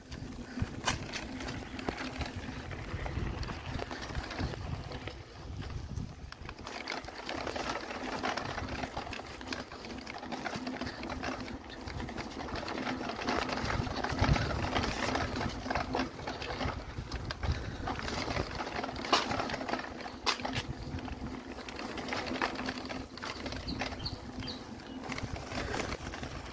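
Mountain bike rolling over a hard, stony dirt track: tyres on rock and dirt, with irregular knocks and rattles from the bike over the rough ground and a faint steady hum underneath.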